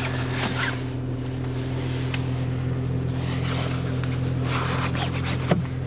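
Car engine idling steadily, with rubbing and scraping noises over it, strongest a few seconds in.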